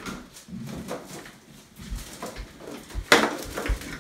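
Handling noise: light knocks, rustles and low thuds as things are moved about, with a sharper knock about three seconds in.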